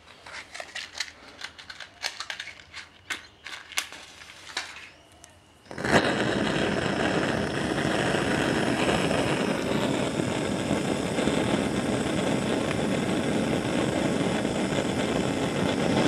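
A few small clicks and knocks, then about six seconds in a blowtorch burning barbecue gas (LPG) lights suddenly and burns with a steady hiss, heating the homemade steam boiler from cold.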